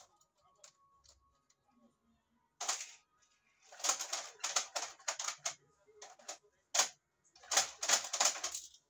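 Rustling and scratching of yarn and crochet hook being handled close to the microphone, in four short spells, as the yarn tail is pulled to close a magic ring.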